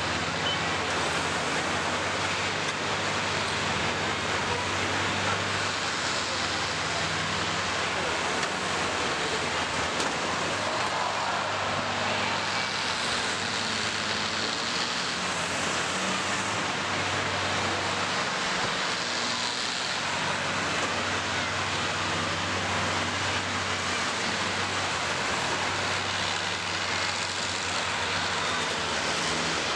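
Engines of several combine harvesters running steadily as the machines move around a dirt arena, with a low hum under a constant hiss of noise and no clear crashes.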